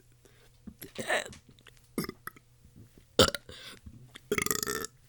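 A person burping several times: a short burp about a second in, a sharp, loud one just after three seconds, and a longer, buzzy burp near the end.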